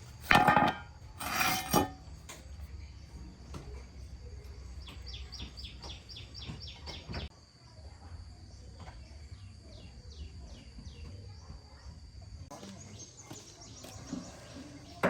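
Two loud knocks or clatters in the first two seconds. Then background bird chirping: quick runs of high chirps, about six a second, over a steady high whine.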